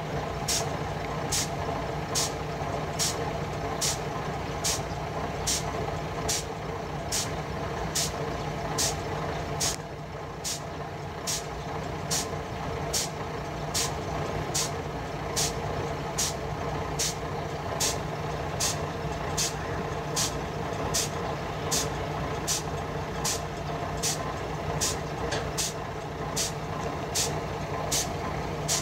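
Diesel engine of a rail work vehicle running steadily, with a warning alarm giving short high-pitched beeps at an even pace of about one and a half a second.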